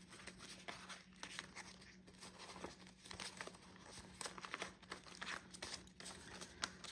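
Faint rustling and crinkling of a stack of paper banknotes, prop money mixed with real cash, being pulled out, fanned and shuffled by hand, over a steady low hum.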